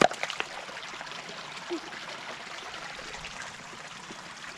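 River water flowing steadily, with a sharp knock right at the start followed by a few small clicks.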